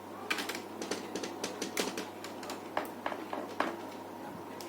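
Irregular small clicks and taps of plastic laptop parts and tools being handled and fitted together, about a dozen over the first three and a half seconds, over a faint steady hum.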